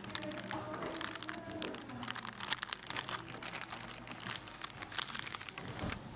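Crinkling and rustling of plastic and tissue being handled at a table, with many small scattered clicks and taps.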